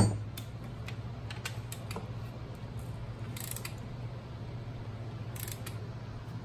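Light clicks and two short metallic rasps, about two seconds apart, from hand tools working the rocker-arm bolts on a Yanmar 3JH3E diesel's cylinder head. Under them runs a steady low hum from a shop fan.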